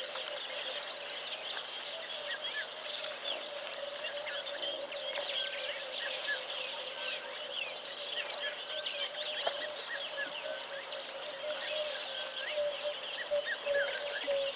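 Outdoor bird chorus: many birds calling at once with overlapping short chirps and whistles, over a steady hum.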